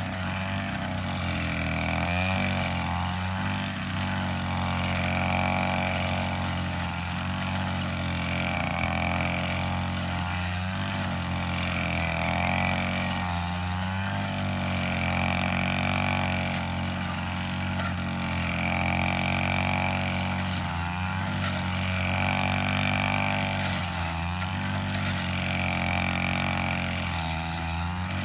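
Petrol brush cutter running at high speed. Its engine pitch dips briefly every few seconds and recovers as the blade swings into the grass under load.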